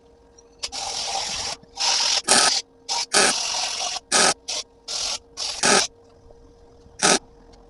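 Repeated short hissing bursts of spray, starting and stopping abruptly, about ten in the first six seconds and one more near the end.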